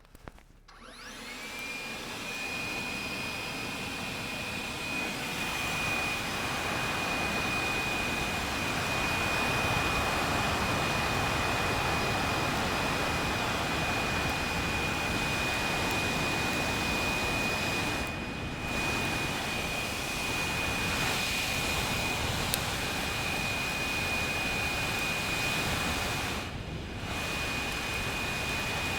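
Leaf blower spinning up, its whine rising within about a second to a steady high pitch over a loud rush of air, then running steadily with two brief dips. It is forcing air into a slow-burning brush pile to get the fire going.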